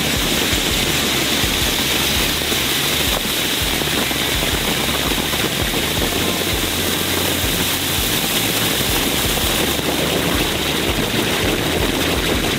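Several cone firework fountains burning together with a steady, loud rushing hiss.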